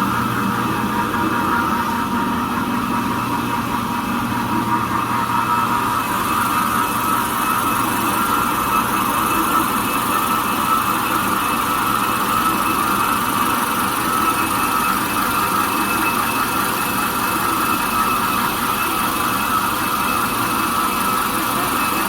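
Jumbo-roll toilet paper slitting machine running steadily, a constant mechanical drone with a steady high whine.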